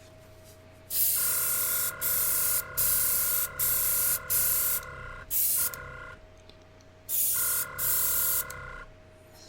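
Gaahleri airbrush spraying rubbing alcohol at 15 psi from its kit compressor, the trigger pulled in a string of short hissing bursts, each with a faint whistle and a rise in the compressor's hum. A faint steady motor tone runs between bursts.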